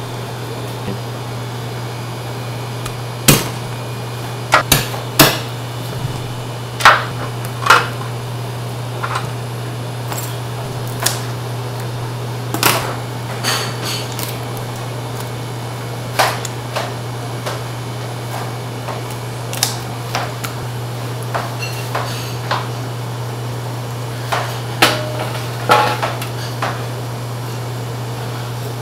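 Sharp, irregular knocks of a cleaver and boning knife striking a thick wooden chopping block while a whole raw duck is chopped and boned, some knocks with a short metallic ring. A steady low hum runs underneath.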